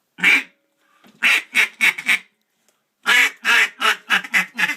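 Mallard duck call blown in raspy quacks: one single quack, then a group of four, then a longer, faster run of about eight, as a call meant to bring in large groups of mallards.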